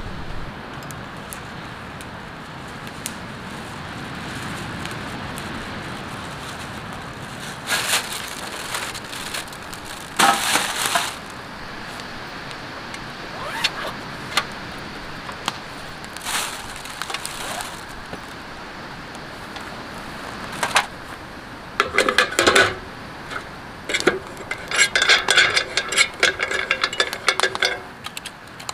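Camping gear being handled over a steady background rush: scattered rustles and knocks, then, in the last several seconds, repeated bursts of metal clinking and rattling as small metal camp parts are handled above a metal camp table.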